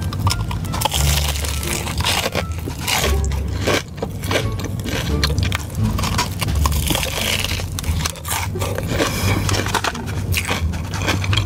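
Biting and chewing a potato-cube-coated cheese corn dog: crisp crunching and crackling from the fried coating, mixed with chewing.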